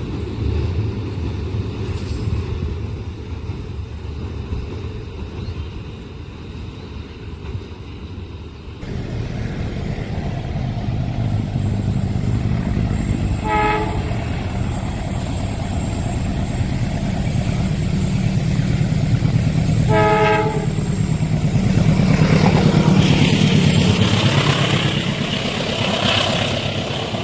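A passing train rumbling along the rails, then, after a sudden change about nine seconds in, a train approaching with two short horn blasts about six seconds apart. The running noise grows louder near the end as it comes past.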